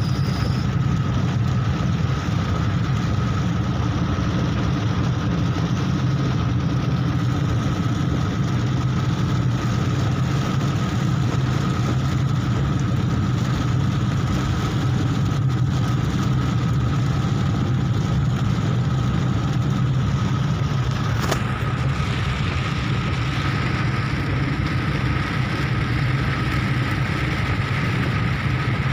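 Steady car cabin noise while driving on a rain-soaked road: a low engine and tyre hum with the hiss of rain and wet road. A single click comes about two-thirds of the way in, and the hiss grows brighter after it.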